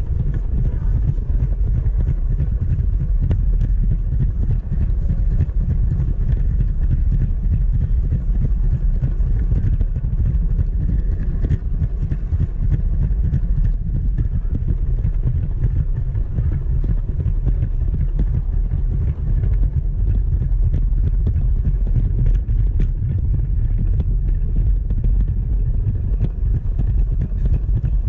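Steady low rumble of a large brick-built model train rolling along plastic brick track, its wheels and motor running continuously and shaking the camera riding on it.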